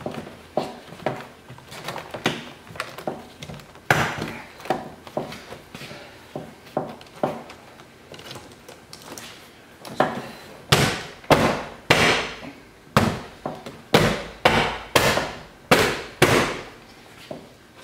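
Door trim panel being pressed onto a car door: scattered knocks and clicks, then about a dozen loud palm thumps roughly two a second as the panel's retaining clips are snapped into the door.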